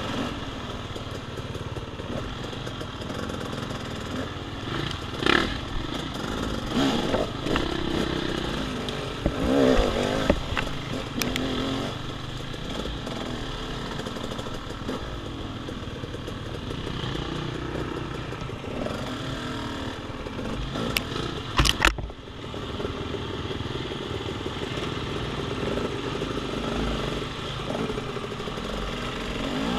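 Off-road dirt bike engine running at low speed on a woods trail, with a few sharp clatters and knocks, the loudest a little past 21 seconds in.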